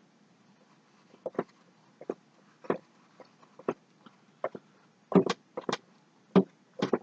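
Paintbrush stroking across a canvas: a series of short, scratchy swishes at an uneven pace, louder and closer together in the last two seconds.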